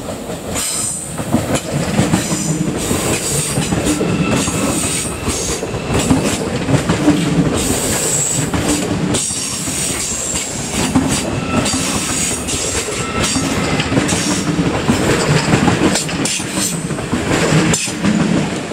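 Deutsche Bahn ICE high-speed electric train passing close by at speed: a steady rush of wheels on rail with clatter and a faint high whine. It builds over the first two seconds and drops off sharply as the last car clears, near the end.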